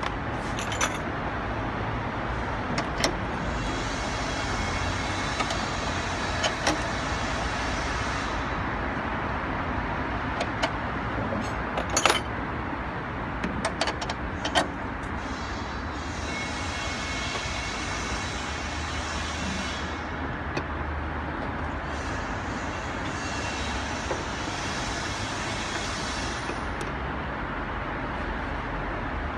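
Scattered metallic clicks and clinks of a wrench and bolts as a hood-strut mounting bracket is fastened at the strut tower, the sharpest cluster a little before halfway through, over steady background road noise.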